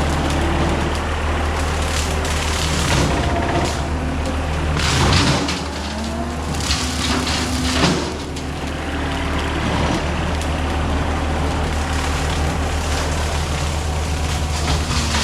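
John Deere 326E skid steer's diesel engine running steadily under load while it drives a hydraulic brush cutter, with a shifting hydraulic whine over the engine hum. Two louder crashing surges, about five and eight seconds in, as the cutter takes into brush.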